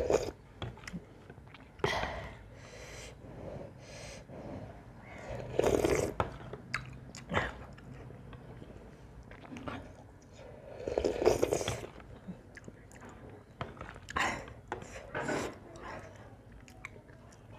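Close-up eating sounds: thin buckwheat-flour soup slurped off a spoon, with about four loud slurps, near the start and at about 2, 6 and 11 seconds. Between the slurps there is chewing and small mouth clicks.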